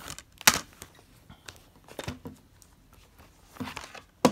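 Plastic Blu-ray cases being handled and moved on a wooden table: a few short clacks and taps, the loudest about half a second in, with quieter handling noise between.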